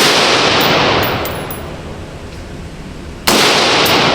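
Two pistol shots about three seconds apart, each a sharp crack followed by a long echoing decay in an indoor shooting range, with a few faint sharp clicks in between.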